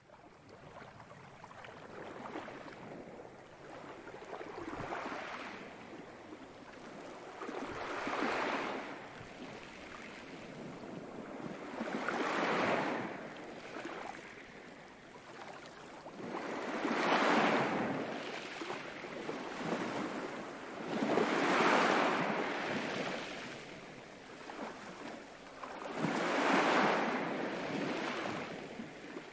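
Recorded sea sound of waves washing in, each one swelling and fading about every four to five seconds, six in all.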